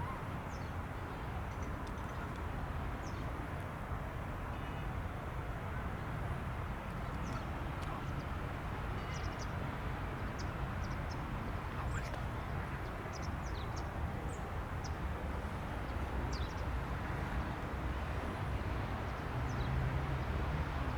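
Airbus A319 jet engines running with a steady low rumble, building slightly near the end, with short high chirps scattered over it.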